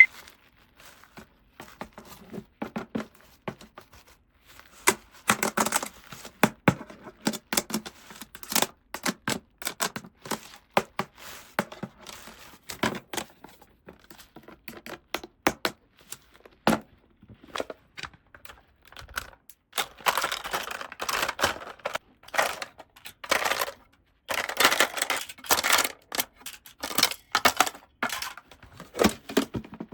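Small plastic toy pieces and packaging being handled: irregular clicks, taps and light rustling, with denser bursts of handling about twenty and twenty-five seconds in.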